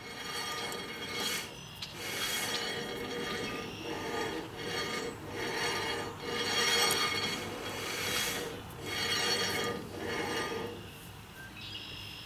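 Heavy brake drum on a Dana 71 axle hub being turned by hand, giving a rasping rub that swells and fades with each turn, about once a second. He is turning it to check its runout.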